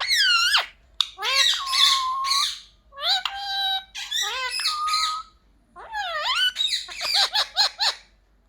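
Indian ringneck parrot calling: a series of loud, shrill squawks whose pitch swoops up and down, ending in a quick run of short chattering notes.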